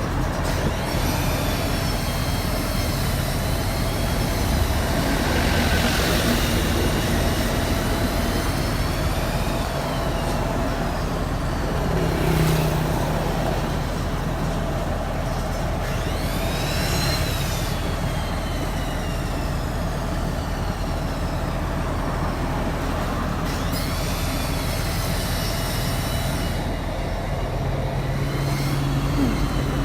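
Heavy diesel machinery running steadily, with a high-pitched squeal that rises and falls several times.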